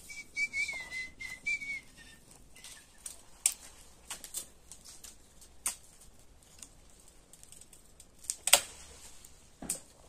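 A short, slightly wavering whistle in the first two seconds, followed by scattered cracks and snaps of dry twigs and grass being handled, the loudest a sharp snap about eight and a half seconds in.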